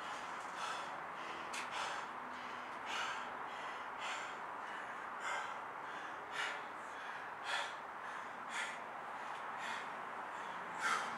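Heavy breathing: short, sharp breaths about once a second over a steady background hiss.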